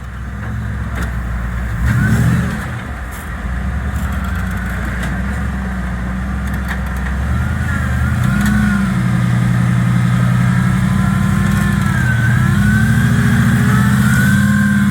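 Off-road rig's engine revving under load as it crawls a rocky hill, building briefly about two seconds in and again from about eight seconds on. A higher whine rises and falls with it.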